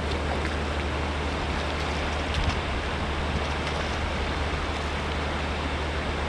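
Steady rushing of a flowing river, even and unbroken, with a deep rumble underneath.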